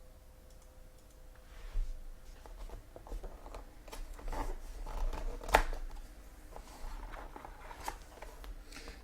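Sports-card box packaging being opened and handled: irregular rustling, scraping and clicking that starts about a second and a half in, with one sharp click past the middle.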